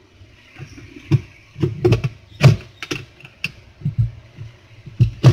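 Irregular sharp plastic clicks and knocks, about a dozen, some with a dull thud, as the lint filter is pried and tugged out of a twin-tub washing machine's tub.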